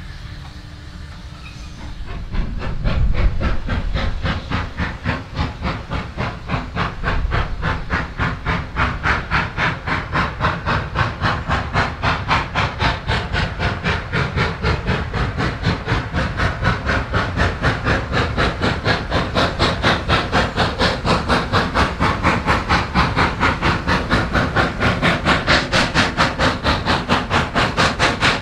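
Industrial steam locomotive working away: its exhaust beats start about two seconds in and settle into a fast, even chuff with steam hiss.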